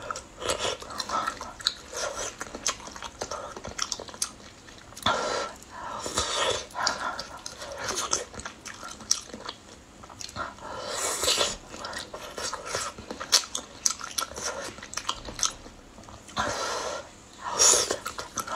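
A person biting and chewing mouthfuls of spicy hot-pot food taken up with chopsticks, with wet smacking and clicking mouth sounds coming irregularly.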